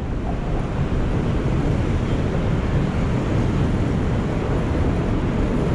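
Steady low rumble of wind buffeting the microphone, mixed with road traffic along an airport terminal curb.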